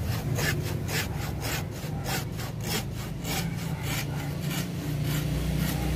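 Small hand saw cutting through a live bougainvillea trunk, rasping back and forth at about three strokes a second.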